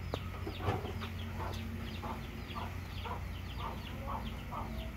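Chickens clucking in a yard, short calls repeating about twice a second, over a steady low hum.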